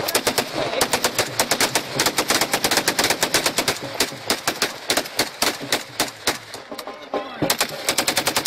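Several rifles fired rapidly into the air at once, the shots overlapping in dense volleys. The firing thins out briefly about six seconds in, then picks up again as a fast, even run of shots near the end.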